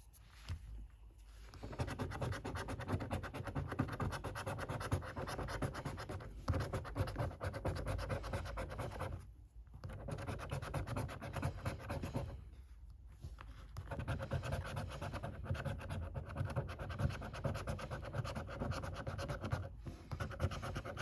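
A scratchcard being scratched off in rapid, rasping strokes, in several bouts with short pauses between them.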